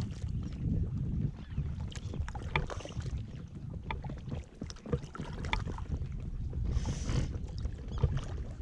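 Kayak being paddled on open water: paddle strokes in the water with scattered light knocks, over a low, steady rumble of wind on the microphone.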